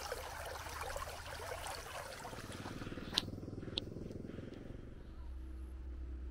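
Street ambience with a motor vehicle's engine running, settling into a steady low hum in the last second or so. Two short, sharp high sounds come about half a second apart near the middle.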